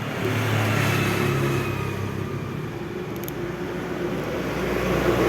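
A motor vehicle engine running steadily, a low drone that swells slightly near the end.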